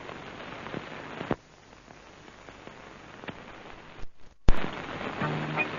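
Surface hiss and crackle of a worn old film soundtrack, with scattered clicks, a brief dropout and a loud pop about four and a half seconds in. Music starts near the end.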